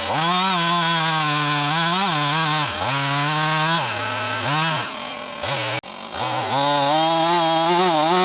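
Two-stroke chainsaw running, its engine pitch rising and dipping again and again as the throttle is worked.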